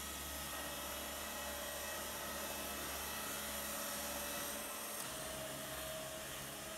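Steady whirring, hissing sound from an interactive sound installation with a motorised textile automaton: a low hum under an even hiss, with a few held tones, one of which shifts about five seconds in.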